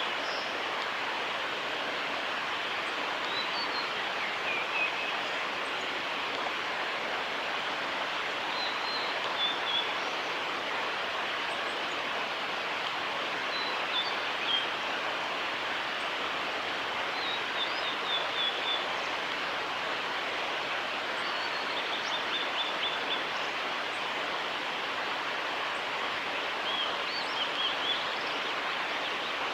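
Male blue-and-white flycatcher singing: short high phrases of whistles ending in quick trills, repeated every four to five seconds, over a steady background rush.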